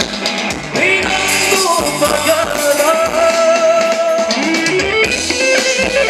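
Thai ramwong band music with a singer holding long notes over guitar and drums.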